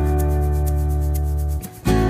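Background music led by guitar, a held chord that drops away briefly near the end.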